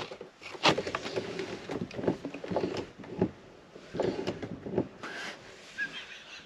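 A roller fly screen and blind on a motorhome window being handled: irregular clicks, knocks and rustling as the screen is pulled and clipped.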